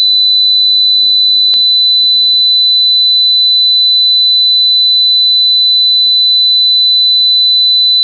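A loud, steady high-pitched whine at one unchanging pitch, a fault in the phone camera's sound track. Under it is faint wind rumble on the microphone that drops out for a moment near the middle and again after about six seconds, and there is a single click about one and a half seconds in.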